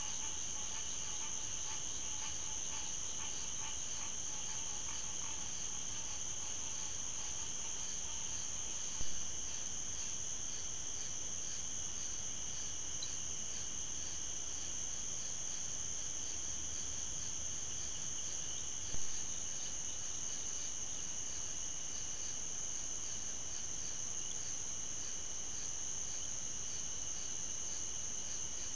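A steady, high-pitched chorus of night insects calling, with a short pop at about nine and again at about nineteen seconds in.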